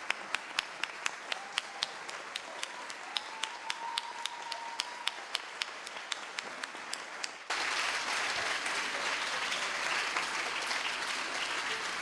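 Audience applauding, with one person's sharp claps close to the microphone at about three a second. About seven and a half seconds in, the single claps stop and the applause turns fuller and louder.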